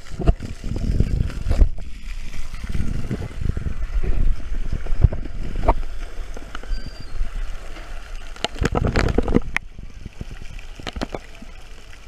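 Shallow pool water sloshing and gurgling around a handheld GoPro, with several sharp knocks and splashes, the busiest stretch near the end.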